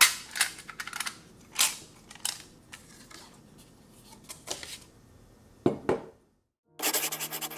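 Clicks, taps and rustles of a metal watercolour paint tin and its paper packaging being handled and opened, with a louder rustle about six seconds in. After a short silence, a fast dense scratching begins over a low steady musical note.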